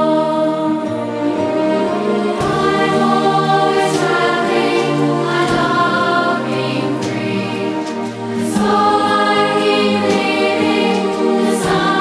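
Choir singing long held chords with music, the chords changing every second or two.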